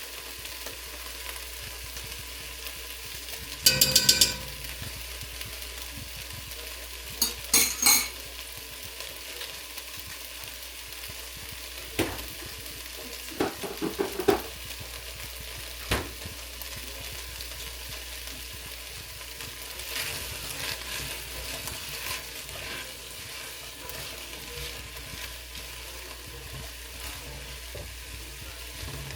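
Food sizzling steadily in a hot pot while it is stirred, with a few sharp metal clanks and scrapes of a utensil against the pot, the loudest about four seconds in.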